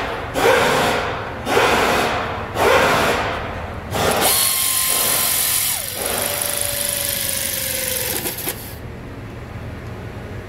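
Pneumatic air ratchet driving a rear brake caliper bolt: three short bursts about a second apart, then a longer run with a whine that drops lower partway through. It cuts off near the end.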